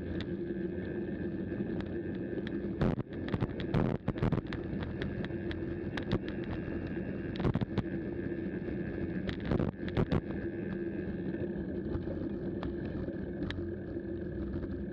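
Bicycle rolling on a gravel road: steady tyre and wind noise with a constant hum, broken by a handful of sharp knocks and rattles about three to four seconds in and again around seven to ten seconds in.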